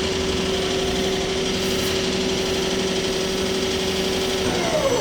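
Ikegai TU-30LL CNC lathe's spindle drive running steadily at 500 rpm in low range, a constant whine with a hum underneath. Near the end the pitch falls as the spindle slows down to stop.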